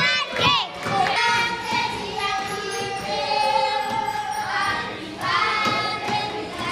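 A group of children singing together, several voices holding long sung notes.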